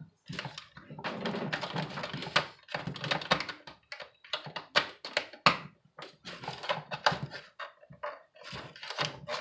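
Irregular clicks, taps and scraping of hand tools and small parts being handled on a chainsaw during maintenance.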